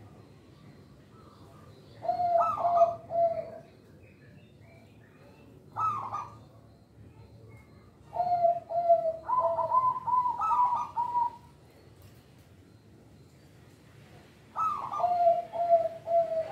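Zebra dove (perkutut) cooing in four separate bursts of quick, repeated coos. Each burst opens on a higher note and runs on in lower coos. The longest burst, near the middle, lasts about three seconds.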